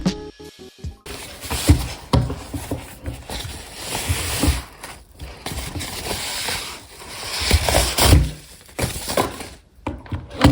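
Packaging being handled and opened by hand: rustling with repeated knocks and thumps, the loudest knocks near the end.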